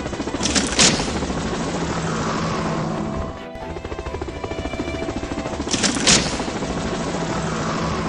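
Background music with a fast pulsing beat and a whooshing swell that comes round twice, about five seconds apart.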